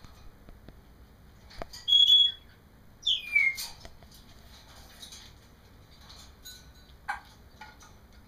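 African grey parrot whistling: a short, steady high whistle about two seconds in, then a whistle sliding downward about a second later, with a few faint clicks and short chirps between.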